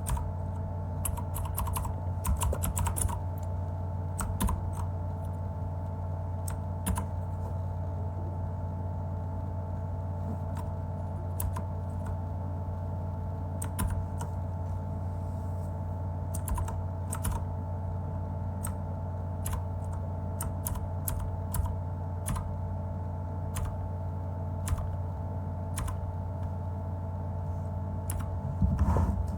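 Typing on a mechanical keyboard with clicky blue switches: scattered, irregular keystrokes with a quick flurry near the end. A steady hum runs underneath.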